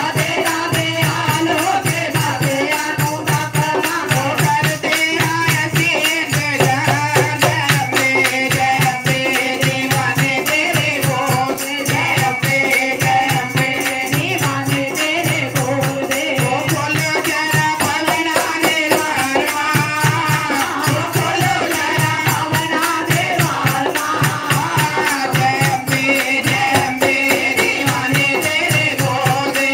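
Group of women singing a Hindu devotional bhajan to the Mother Goddess through microphones, over a steady beat of jingling hand percussion and a drum.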